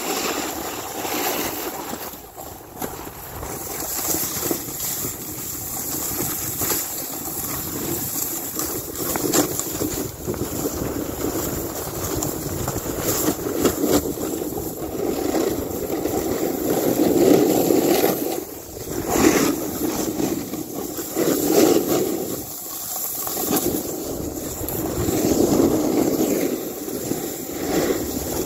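Snowboard sliding through deep powder snow: a steady rushing hiss that swells several times in the second half, with wind buffeting the microphone.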